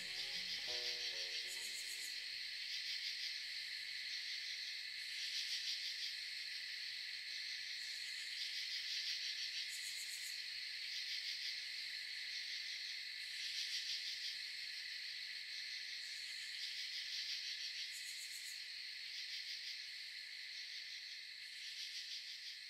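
Instrumental music fades out in the first two seconds, leaving a steady, high chirping chorus of crickets and other insects that swells every few seconds.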